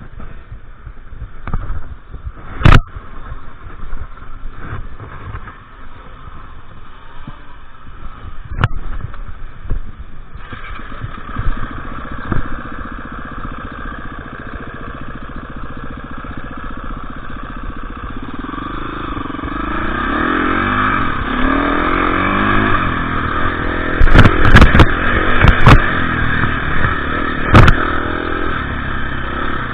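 KTM EXC 350 enduro motorcycle engine running off-road. It is low at first with scattered sharp knocks, then grows louder about a third of the way in and revs up and down, with a cluster of loud knocks near the end.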